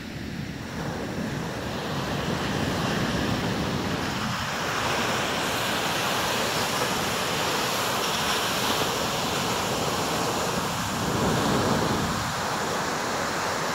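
Atlantic surf breaking and washing up a sandy beach: a steady rush of small waves that builds over the first couple of seconds and swells again near the end.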